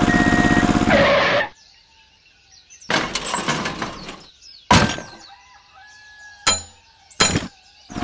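A small motor running with a steady buzz cuts off about a second and a half in. A series of crashing, breaking impacts follows: a rough clatter about three seconds in, then three sharp hits near the end.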